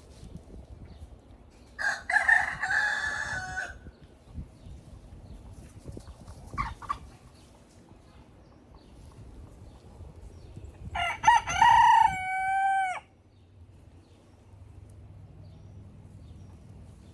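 Rooster crowing twice, the second crow louder and ending in a long drawn-out final note, with a short call between the two crows.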